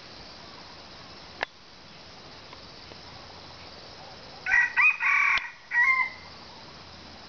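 A red junglefowl cock crowing once, about two-thirds of the way in: a short crow in a few broken syllables ending on a rising note. A single sharp click sounds about one and a half seconds in.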